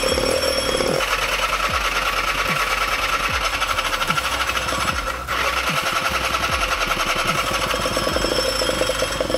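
Electronic dance music: a fast buzzing, pulsing synth over a steady kick drum about every 0.8 s, with a short break about five seconds in.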